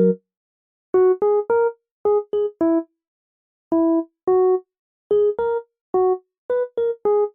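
Background music: a simple, cute tune of short, separate notes played in small groups of two or three, with complete silence between the groups.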